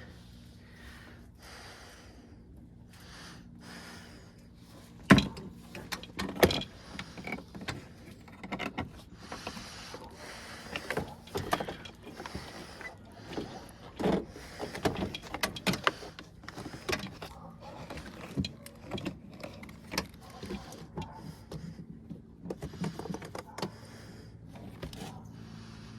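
Irregular clicks, knocks and rattles of parts being handled and fitted on a truck door during reassembly, with two sharper knocks about five and six and a half seconds in, over a faint low steady hum.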